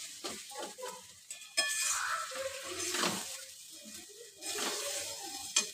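Spatula stirring and scraping minced mutton and thick masala round a metal kadai, in irregular strokes with a few metallic clinks against the pan, the sharpest near the end, over a light sizzle.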